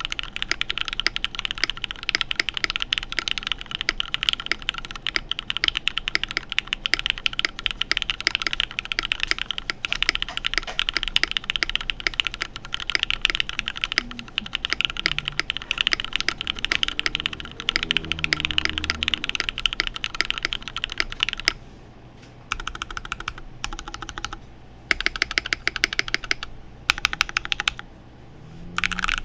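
Fast typing on a UTD 356 Mini mechanical keyboard with linear Cherry MX Black switches, an aluminium plate and PBT keycaps: a dense run of keystroke clicks that breaks into shorter bursts with short pauses about three quarters of the way in.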